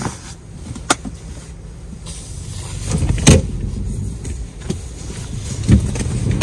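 A few sharp knocks and clicks of belongings being moved about in the back of a van, the loudest about three seconds in, over a low steady rumble.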